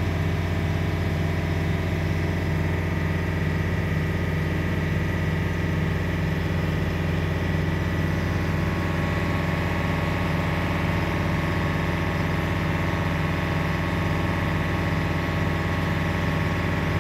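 The boat's 35-horsepower Yanmar diesel engine running steadily under way, a constant low hum with no change in speed.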